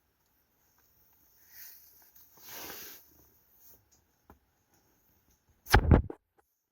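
Crickets and other insects chirping steadily with high-pitched calls, a soft rustle about a second and a half in, then a loud, sudden cluster of knocks near the end.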